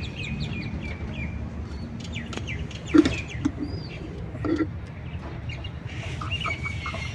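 Birds chirping in short high calls near the start and again near the end, over a steady low rumble. Two knocks, about three seconds in and a second and a half later, come from a PVC pipe fitting and a solvent cement tin being handled.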